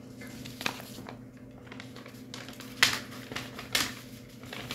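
Paper rustling as a folded question slip is picked up and opened: a few short crackles, the loudest about three seconds in, over a steady low hum.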